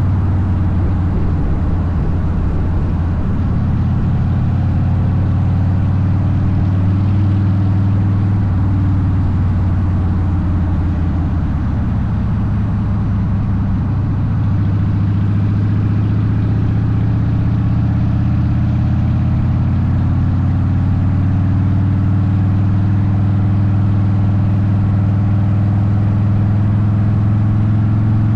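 Harley-Davidson Softail Deuce V-twin running through a Vance & Hines exhaust while riding at a steady pace, with a brief easing off about twelve seconds in before it picks back up.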